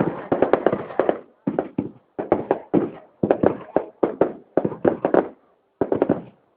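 Fireworks display: quick strings of sharp bangs from bursting shells, several a second, in clusters broken by short gaps.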